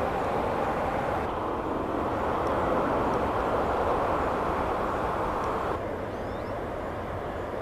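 Steady outdoor background rumble with no distinct source, changing level abruptly twice, with a few faint high chirps.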